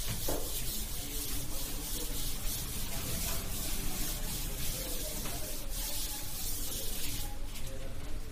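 Blackboard duster wiping chalk off a chalkboard in repeated strokes: a scratchy rubbing noise that swells and fades stroke by stroke.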